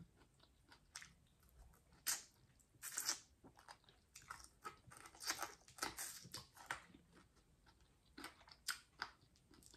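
A person eating close to the microphone: chewing and biting food, with a scatter of short, crisp clicks and crackles from the mouth, thickest in the middle of the stretch.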